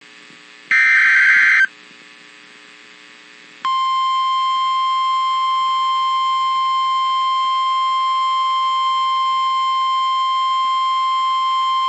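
NOAA Weather Radio alert tones. First a harsh one-second screech of SAME digital header data, then a quiet hiss. A little under four seconds in, the steady single-pitch warning alarm tone starts and holds, signalling a warning about to be read.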